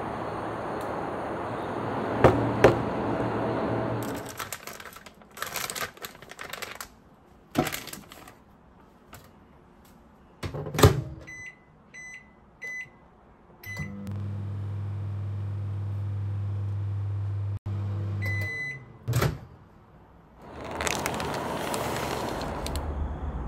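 Microwave oven: a few short keypad beeps, then its steady low hum as it runs for several seconds, ending with a longer beep. Clicks and knocks of handling come before it, and a rush of noise follows near the end.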